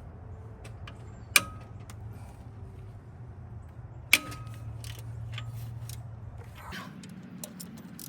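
Metal hand tools clinking during alternator removal: two sharp metallic clinks with a short ring, about a second and a half in and again about four seconds in, with lighter ticks of handling between, over a steady low hum.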